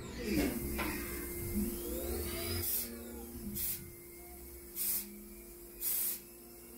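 Haas CL-1 CNC lathe cutting brass bar stock under coolant spray: a steady spindle hum with sliding whines as the tool slide moves in, then four short, loud hisses about once a second.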